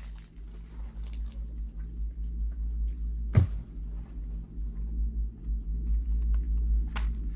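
A steady, fluttering low rumble with a faint hum above it, broken by a single sharp thud about three and a half seconds in, plus a few brief rustles.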